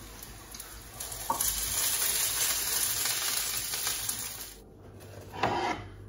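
Hot oil sizzling as sigara böreği pastry rolls fry in a pan. The sizzle starts with a click about a second in and cuts off suddenly near the end, followed by a short noise.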